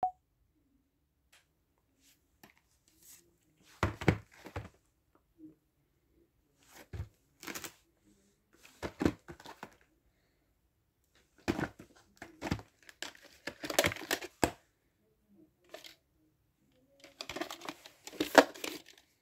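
VHS tapes and their cases being handled: plastic clicks, knocks and rustling in several short bursts with pauses between.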